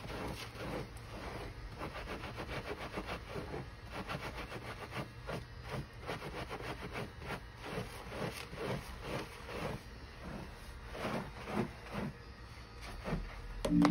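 A handheld silicone scalp brush scrubbing shampoo lather through wet hair: a steady run of short rubbing strokes, about two or three a second.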